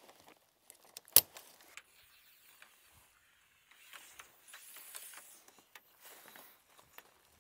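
Tent pole handling: a sharp click about a second in as the pole end is set into a corner grommet, with a few lighter clicks around it. Later come soft scraping and rustling as the pole is worked along the tent body's clips.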